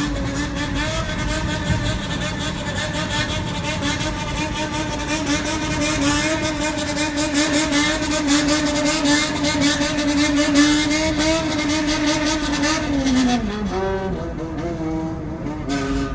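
Honda CBX400F inline-four revved through a Waltz Kikai exhaust in a high-rev 'call': the engine is held near the top of its revs with the throttle worked in a quick, wavering rhythm. About thirteen seconds in the revs fall away, then pick up again briefly near the end.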